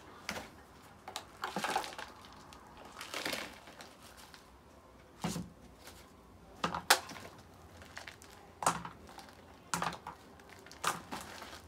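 Scattered sharp clicks and brief scraping, crinkling noises, about ten in all and irregularly spaced. They come from tools and copper wire being worked at a bonsai pot.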